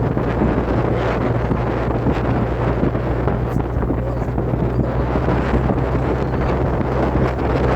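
Wind buffeting the microphone: a steady, loud rumble over a rushing hiss, with no break.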